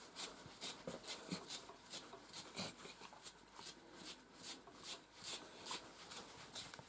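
Stripping knife pulling dead hair from a miniature Schnauzer's wiry coat in hand-stripping: short, faint scratchy rasps, about three a second, one for each pull.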